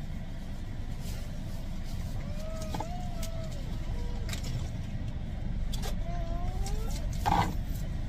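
Steady low rumble inside a car's cabin, with a faint voice rising and falling twice and a brief noise near the end.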